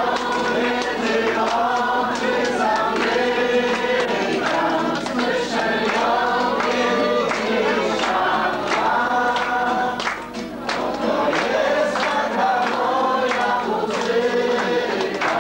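A group of people singing a song together in Polish, with long held notes.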